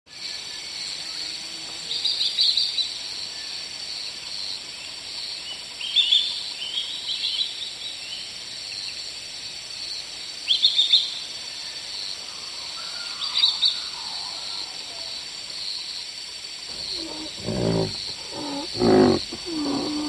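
Splendid fairy-wren (Malurus) song: short, high, trilling bursts every few seconds over a steady background hiss. In the last few seconds, loud, deep animal calls come in.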